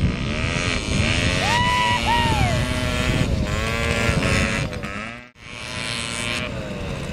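Several small two-stroke 50cc scooter engines buzzing and revving, their pitch rising and falling, with two short high rising-and-falling tones about a second and a half in. The sound cuts off abruptly just past five seconds, then the scooters resume.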